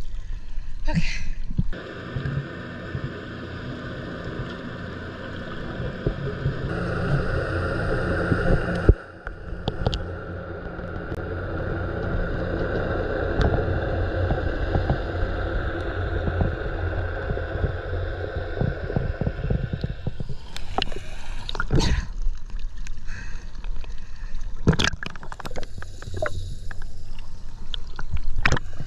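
Muffled underwater sound picked up by a camera below the surface: a steady hiss with a low hum, then a run of splashes and knocks over the last several seconds as water moves around the camera at the surface.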